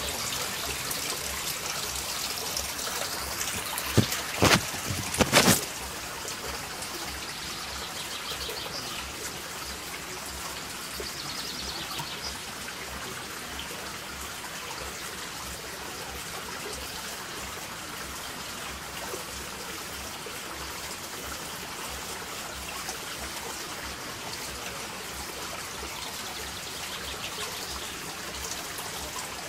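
Water trickling and splashing steadily from a water mill's overshot bucket wheel. A few loud sharp knocks sound about four to five seconds in.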